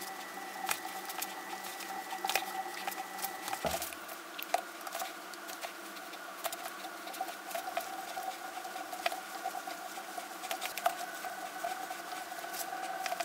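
A hand tap cutting threads into a steel block held in a vise, making frequent small irregular clicks and ticks as it is turned with a tap wrench. A faint steady hum of tones lies underneath.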